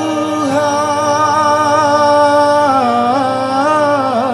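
Live dangdut band music: a male singer holds a long wordless melodic line with vibrato. He slides up into the first note and steps down in pitch twice later on, over a steady low hum.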